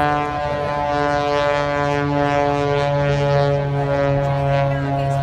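Aerobatic biplane's piston engine and propeller droning steadily, its pitch drifting slightly up and down as it manoeuvres.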